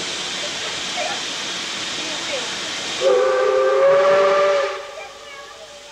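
Steam locomotive 520's whistle sounds one steady blast of about a second and a half, a little after three seconds in, over a steady hiss, then dies away.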